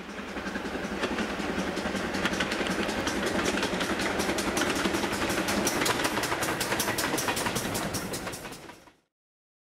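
Steam-hauled passenger train passing close by, the wheels clicking rhythmically over the rail joints, the clicks coming thicker as the coaches go past. The sound fades in at the start and fades out near the end.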